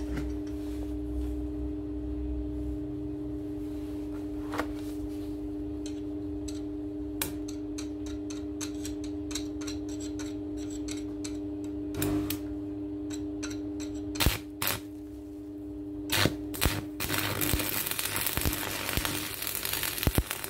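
Stick (arc) welder humming steadily, with a few sharp clicks as the electrode touches the work. In the last three seconds or so the arc strikes and crackles continuously as a steel Allen key piece held in a vise is welded.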